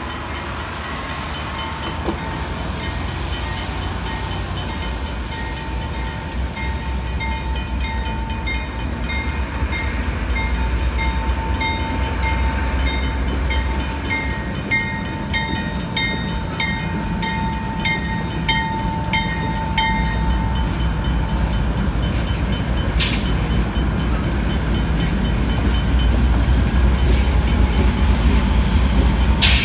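Railway crossing's mechanical bell ringing in steady, evenly spaced strokes, over a low diesel rumble that grows as two CN locomotives approach and pass through the crossing. Two-thirds of the way in the bell is lost under the train, and there are a couple of sharp clacks near the end. No horn sounds, as the crossing is a quiet zone.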